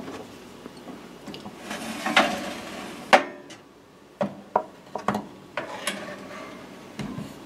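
A metal baking tray scraping as it slides into a Breville toaster oven on the wire rack, with a sharp clack about three seconds in. A run of lighter knocks and clicks follows as the oven door is swung shut.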